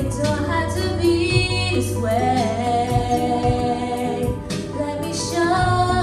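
Christian worship song: female voices singing sustained, gliding lines over instrumental backing with low drum-like thumps.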